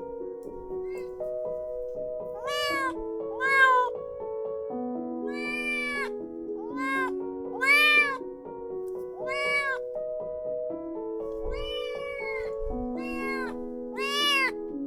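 Kitten meowing over and over, about ten short high meows that each rise and fall in pitch, over background music of held keyboard notes.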